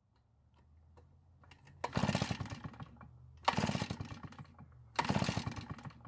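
RedMax EBZ8500 backpack blower's two-stroke engine pull-started three times, each pull of the recoil rope turning the engine over in a quick run of chuffs for about a second, but it never catches or fires: the blower won't start.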